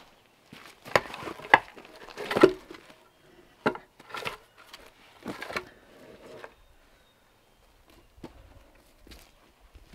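Wooden planks knocking against each other as they are handled and set in place. Three sharp knocks come in the first two and a half seconds, the last one loudest, then a few lighter knocks and scrapes, and only faint ticks after that.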